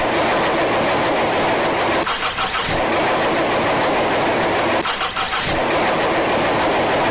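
An engine, loud and steady, with short stretches of rapid cranking-like pulses about two seconds in and again about five seconds in.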